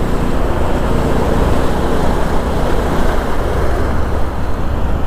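Steady rush of wind and road noise on a Bajaj Pulsar NS200 motorcycle riding at highway speed, its single-cylinder engine running under it.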